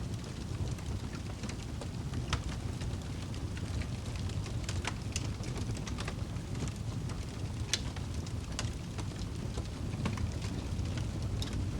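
Wood fire in a fireplace burning, with scattered sharp crackles and pops over a low steady rumble of the flames.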